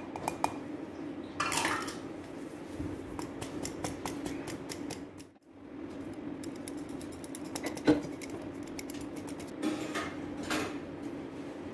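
Metal squeeze-handle flour sifter being worked over a glass bowl: fast runs of fine clicking and rasping as its blades sweep the mesh, with a few scrapes and one sharp knock of metal against the bowl near the middle.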